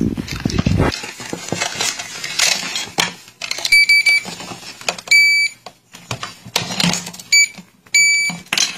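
Touch keypad on an alarm system's main panel being operated: irregular finger taps and clicks, and about four short high beeps from key presses in the second half.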